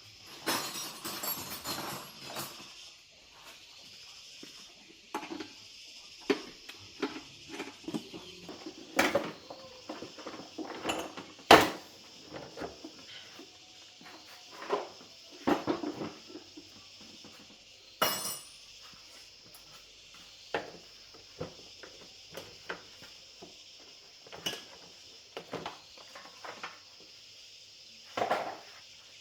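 Scattered metallic clinks and knocks of tools and small parts being handled during hands-on repair work, irregular and one at a time, the sharpest about eleven seconds in, over a steady high hiss.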